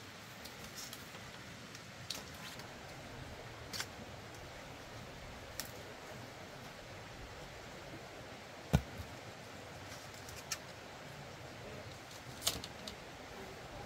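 Faint steady background hiss with a few scattered light clicks and taps, and one sharper knock about nine seconds in.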